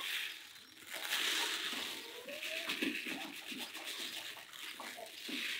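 Ground grain feed pouring in a steady stream onto a red plastic poultry feeder pan, making a dry, continuous hiss.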